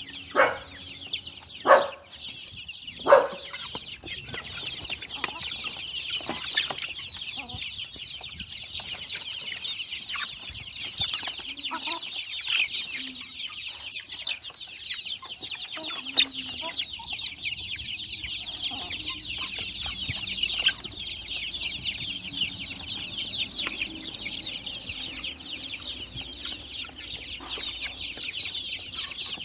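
A flock of young caipira and caipirão chickens peeping constantly in a high, dense chorus as they feed, with three loud calls in the first few seconds.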